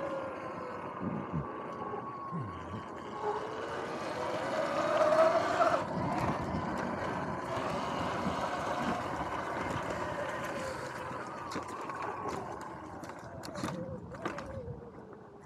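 Electric dirt bike riding, its motor whine rising and falling in pitch with speed over a steady rushing noise, loudest about five seconds in. A few sharp knocks near the end.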